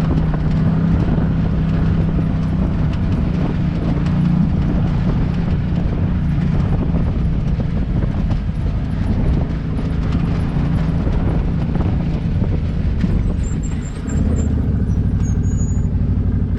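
UTV engine running as it drives along a dirt trail, with a steady pitch. About fourteen seconds in it dips and drops to a lower, steadier note as the machine slows at the trail's end.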